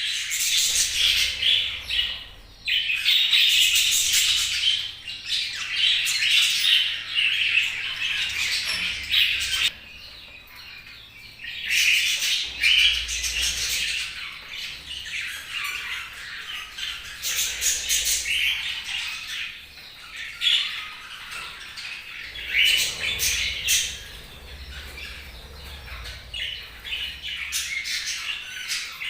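Budgerigars chirping and squawking in a busy, high-pitched chatter that comes in stretches, with quieter lulls about ten and twenty seconds in.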